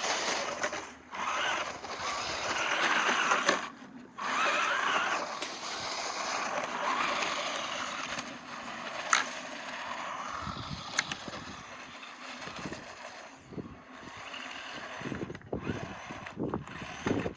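Electric RC truck driving over rough ground: motor and drivetrain whine with tyre noise, rising and falling with the throttle, briefly cutting out at about four seconds. There are a few sharp clicks and some knocks near the end.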